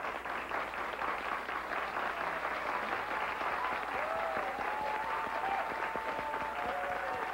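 Studio audience applauding steadily, many people clapping at once.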